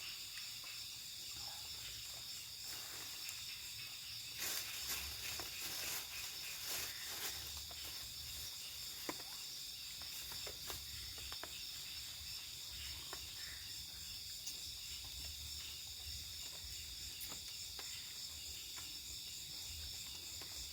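Night-time forest insect chorus: crickets and other insects trilling steadily and high-pitched, with scattered faint clicks and knocks, more of them a few seconds in.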